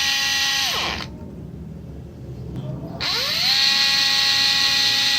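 Small handheld electric motor tool whining at high speed, winding down within the first second, then spinning up again about three seconds in and running steadily with a hiss over its whine.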